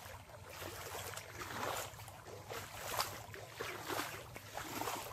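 Someone wading through shallow floodwater over a road: a run of irregular sloshing splashes of water around the legs.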